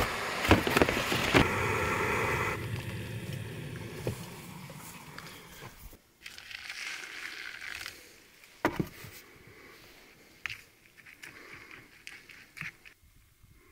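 A Jetboil camping stove's burner hissing steadily, stopping after about two and a half seconds. Then hot water is poured over dry oats in a paper bowl, and a spoon stirs and scrapes the oatmeal with a few sharp clicks.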